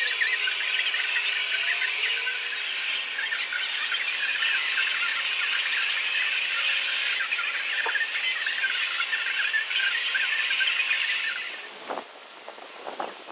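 Electric heat gun running steadily, a high fan whine over a strong hiss of hot air, as it is passed over a freshly poured epoxy coat to pop the surface bubbles. It stops about a second and a half before the end, leaving quieter outdoor air and two soft knocks.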